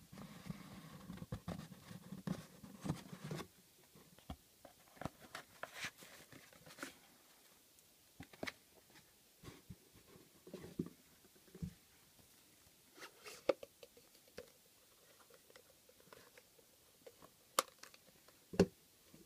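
Hands handling watch packaging: a cardboard box being opened, then a metal dive-tank-shaped canister. Scattered scrapes, taps and clicks, with a denser rustle over the first few seconds and a few sharper clicks near the end.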